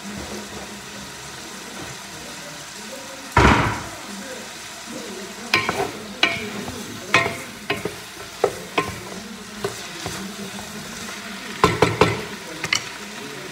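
Tomatoes and seasoning sizzling in a pan as they are stirred. A heavy knock comes about three and a half seconds in, then a run of about a dozen sharp clicks and knocks of the utensil against the pan over the second half.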